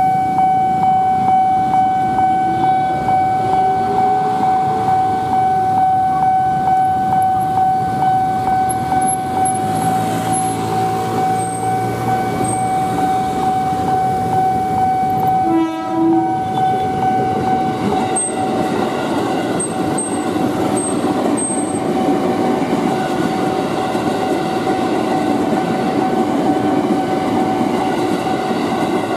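Railway level-crossing alarm sounding a steady electronic tone that pulses about twice a second, breaking off briefly about halfway. In the second half a passing KRL commuter electric train rumbles under it.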